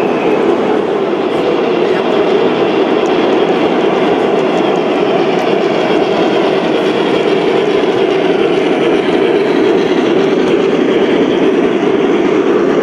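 Gauge 1 model train running along the track: a steady rolling rumble of metal wheels on the rails, with a few faint clicks.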